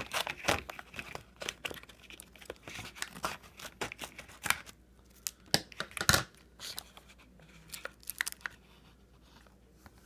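Capri Sun foil drink pouch being cut open with scissors and handled: a run of crinkling, crackling foil with sharp crackles, loudest about half a second in and around six seconds in, thinning out near the end.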